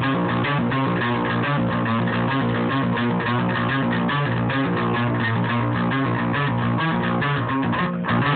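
Electric guitar played with fast picking: a steady, unbroken run of quick notes.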